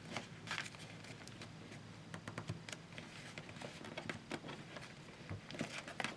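Sheet of paper being unfolded and creased by hand: scattered quiet crinkles and ticks of the paper.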